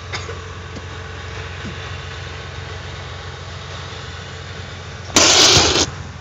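Steady low hum of an engine running in the background, with a loud, brief rush of noise about five seconds in.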